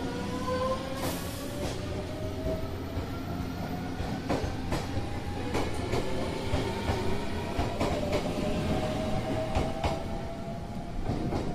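JR 383 series 'Shinano' limited express electric train pulling out of the station, its traction motors whining in a slowly rising pitch as it gathers speed over a steady rumble. The wheels click now and then over the rail joints.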